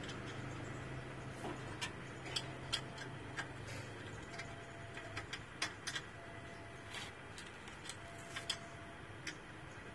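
Irregular small clicks and taps of metal parts being handled on a fuel dispenser's metering and pump unit. A low hum fades out over the first few seconds.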